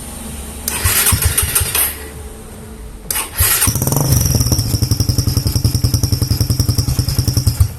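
Suzuki Belang 150 motorcycle being started: the starter cranks, and about three and a half seconds in the engine catches and runs with a fast even pulse, while a fake turbo whistle fitted in the stock exhaust adds a steady high whistle over it. The engine and whistle stop together near the end.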